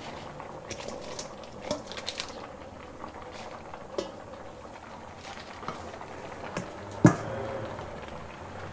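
Pot of pork puchero on the boil with a steady bubbling hiss, broken by scattered light clinks of metal against the pot and one loud clank about seven seconds in.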